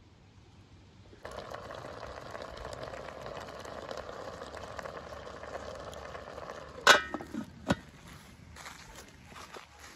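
Pot of pumpkin pieces simmering over a wood fire, a steady bubbling hiss starting about a second in. Near the end a copper lid clanks down onto the pot, sharp and loud, followed by a couple of lighter knocks.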